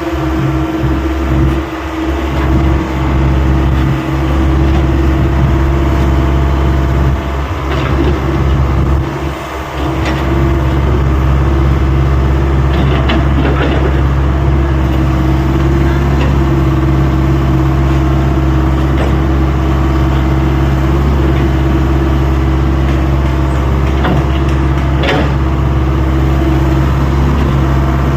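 Excavator's diesel engine running steadily with a deep, even drone, with a few sharp clanks of the machine working.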